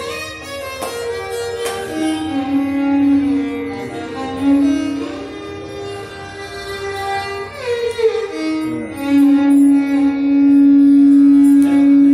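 Two violins playing a Carnatic melody in raga Valachi together, the notes sliding and bent in ornaments, settling on a long held note near the end. A few sharp mridangam strokes sound under it.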